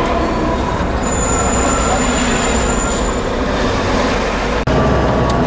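Engine and road noise inside a tourist van's cabin as it drives along a rough mountain road, a steady rumble that drops out briefly about four and a half seconds in.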